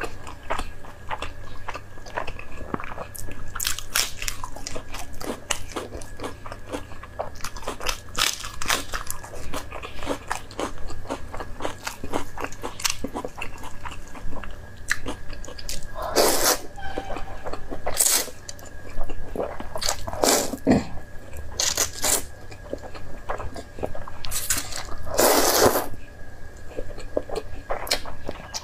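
Close-miked eating: wet chewing and biting with many small mouth clicks, and three longer slurps of noodles in the second half.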